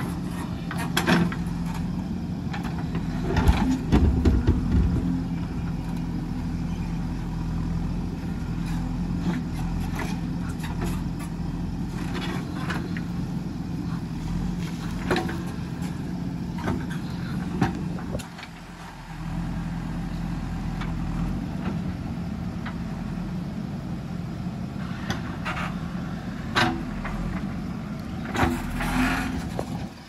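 JCB backhoe loader's diesel engine running steadily as the backhoe bucket digs stony soil, with scattered clanks and knocks from the bucket and stones and a few heavy thuds a few seconds in. The engine note drops briefly about eighteen seconds in, then picks back up.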